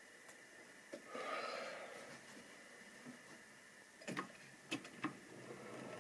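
A short breath about a second in, then a few sharp plastic clicks around four to five seconds in as a hand takes hold of a Triang or Lima model diesel locomotive on its track.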